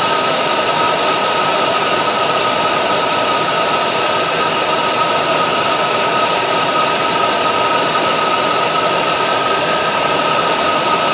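2002 Ford Explorer engine idling steadily under an open hood, an even rush of noise with a thin steady whine over it.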